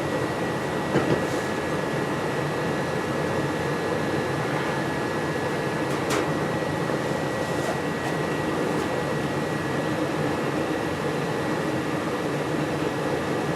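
Rheem gas furnace running in heating mode, with the blower pushing a steady rush of air, a faint steady high whine and one short tick about six seconds in.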